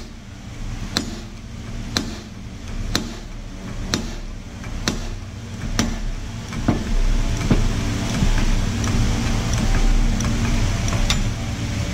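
Hand screw press pressing a ball bearing onto the shaft of an air-conditioner fan-motor rotor: sharp metallic clicks at a steady pace of about one a second, over a steady low hum.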